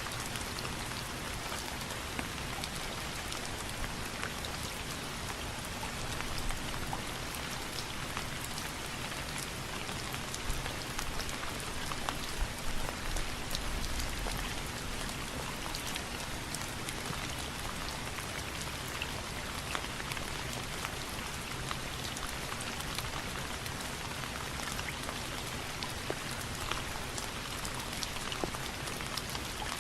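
Steady rain falling on a hard surface, an even hiss with many individual drops ticking through it and a few louder drips between about 10 and 15 seconds in.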